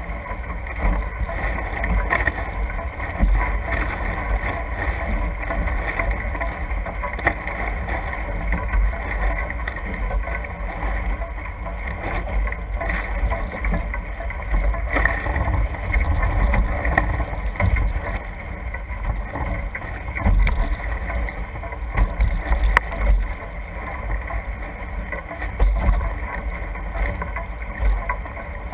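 Wind buffeting the GoPro microphone over the rush of water past the hulls of a NACRA F18 catamaran sailing fast, with spray hissing off the bows. The noise swells and eases unevenly in gusts.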